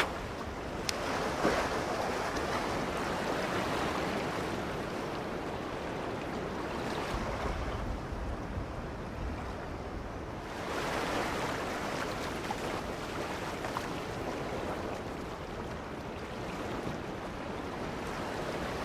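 Ocean surf washing onto a beach, a steady rush of breaking water that swells louder twice, about a second in and again about two-thirds of the way through.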